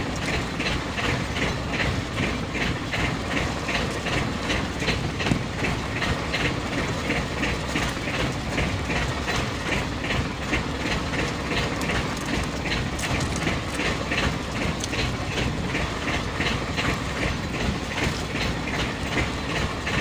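A small fishing boat's engine running at a slow, steady beat: a low rumble with a regular clack about three times a second.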